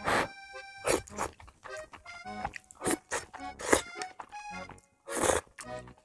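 Thick kalguksu noodles being slurped, about five loud slurps, over light background music.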